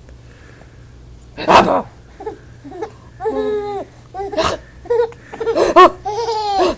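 Baby with hiccups laughing in short, high-pitched bursts, starting about a second and a half in with one sudden loud burst.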